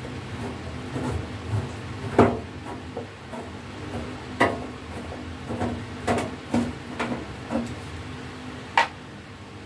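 Screwdriver working the screws out of a welding machine's sheet-metal casing: scattered light metallic clicks and taps, the sharpest about two seconds in, again about four and a half seconds in and near the end.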